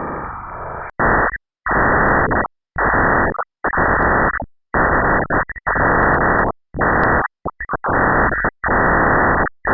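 Loud hissing static that breaks into irregular chopped bursts, each about half a second to a second long, with sudden cuts to silence between them.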